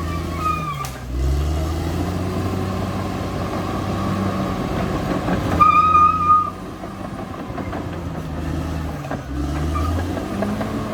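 Caterpillar D6R XL bulldozer's diesel engine running with its steel tracks clattering; the engine pitch sags about a second in and again near the end as it takes load, then picks back up. A brief high squeal about six seconds in is the loudest moment.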